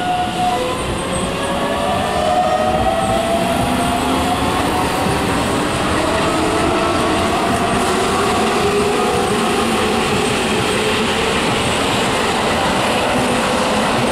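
Keihan electric train accelerating away from the station, its traction motors whining in several tones that climb slowly as it gathers speed, over the running noise of wheels on rails.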